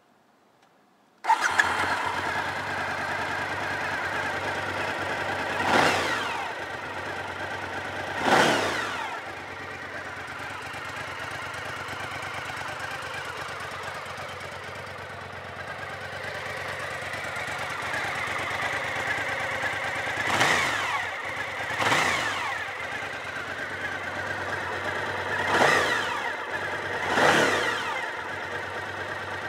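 Suzuki SV1000's 996 cc 90-degree V-twin through its stock exhaust, catching about a second in and settling to a steady idle. It is blipped six times, each rev rising quickly in pitch and falling back to idle.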